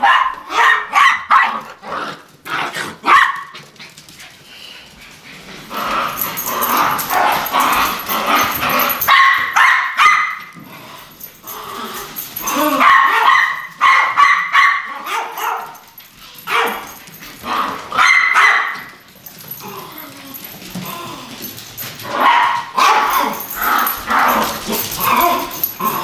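Small dogs barking and yipping in repeated bouts: a quick run of sharp barks at first, then longer stretches of barking with short pauses between.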